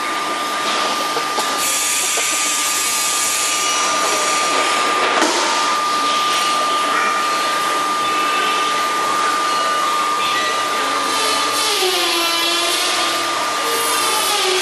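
Steady whirring machine noise with a constant high whine through it, like a blower motor running. From about eleven seconds a second sound with a wavering, gliding pitch joins in.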